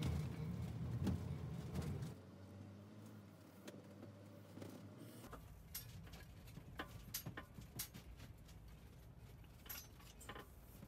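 Inside the cab of a Coachmen Orion motorhome rolling slowly: a low vehicle hum that drops off about two seconds in, then scattered light clicks and rattles from the cabin as it crosses rough ground.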